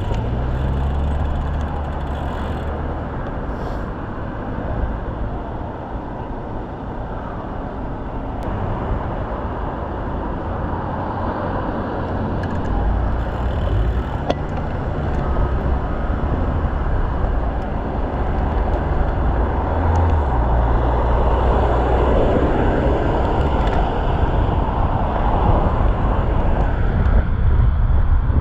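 Road traffic on a busy highway heard from a moving bicycle, vehicles passing in a steady noise with deep rumbles as larger ones go by, mixed with wind on a chest-mounted action camera's microphone. It grows louder in the second half.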